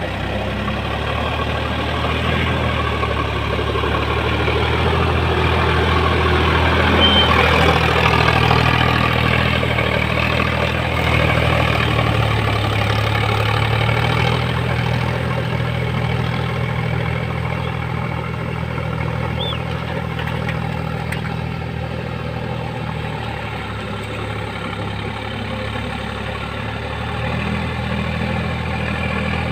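Sonalika 4x4 tractor's diesel engine running steadily while ploughing a paddy field. It swells louder around seven or eight seconds in, then slowly fades.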